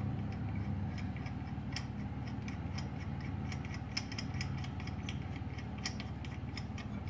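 Lug nut being spun off a steel wheel's stud by hand, a run of small, uneven metallic clicks and ticks, several a second.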